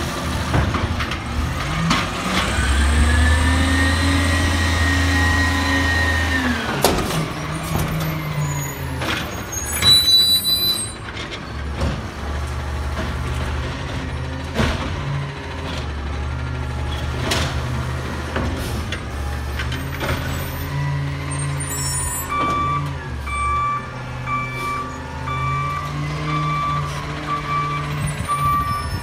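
Natural-gas Peterbilt 320 garbage truck: the engine revs up and holds for several seconds, then drops back. A clatter and air-brake hiss come around ten seconds in. The engine then runs low, and in the last six seconds the reversing alarm beeps steadily as the truck backs up.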